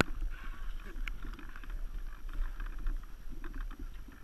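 Muffled rustling and handling noise picked up by an RC seaplane's onboard camera as the downed model lies in dry reeds and grass, with a few faint ticks over a low wind rumble on the microphone.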